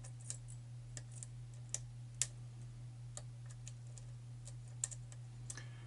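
Faint, irregular metallic clicks of a lock pick probing and lifting the pins inside a pin-tumbler challenge lock with a tight paracentric keyway, over a steady low hum.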